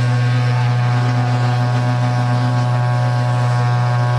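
Berrante, the long Brazilian horn made of joined cattle horns, blown in one long, steady low note.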